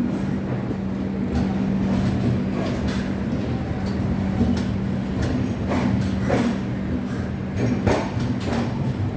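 Interior of an air-conditioned passenger train coach: a steady hum with scattered knocks and clatter.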